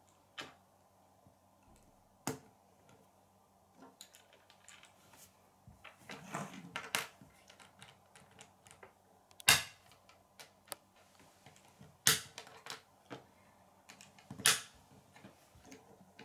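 Plastic K'nex rods and connectors clicking and snapping together as pieces are fitted, with light knocks of pieces on a wooden tabletop. Scattered sharp clicks, with a few louder snaps in the second half.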